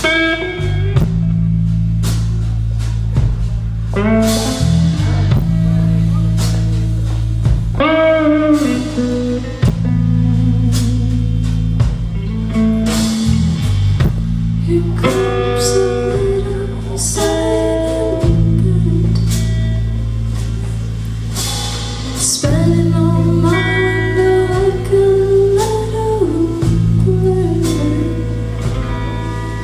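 Live band music: guitar lines over a heavy bass and a drum kit.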